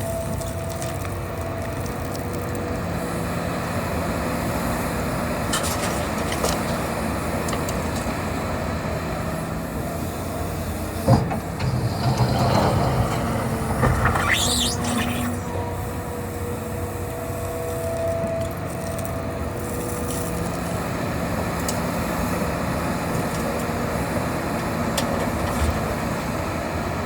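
Hitachi Zaxis 350 excavator running steadily at work, its diesel engine and hydraulics making a constant drone. About a third of the way in there is a sharp knock, then a few seconds of louder rattling with a brief high squeal, before the steady running resumes.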